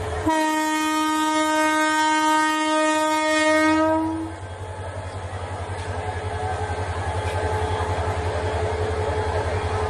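Train horn sounding one long, steady blast of about four seconds, starting just after the beginning. After it, the passing train runs on with a low rhythmic rumble.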